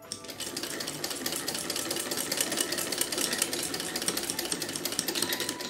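Domestic sewing machine running fast, stitching a seam: a rapid, even clatter of the needle mechanism.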